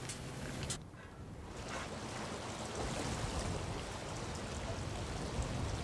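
Steady rush of water that comes up after about a second and a half and holds, preceded by faint room noise and a light knock.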